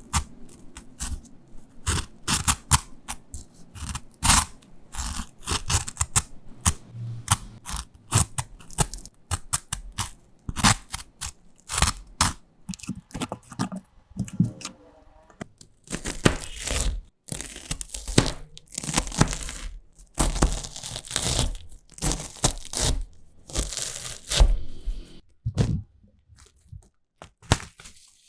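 Close-miked snack sounds: a quick run of sharp cracks and crunches, then from about halfway through longer crinkling, tearing bursts like packaging being handled.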